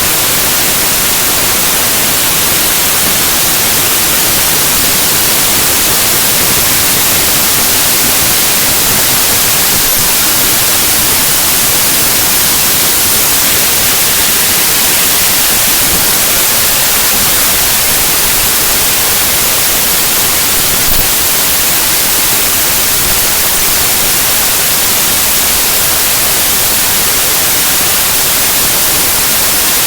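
Loud, steady static hiss, like white noise, from the compressed bytes of a zip archive played back directly as raw 8-bit unsigned mono audio.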